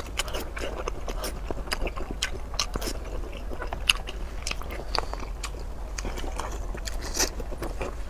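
Close-miked chewing and biting of food in a person's mouth: many short, irregular clicks.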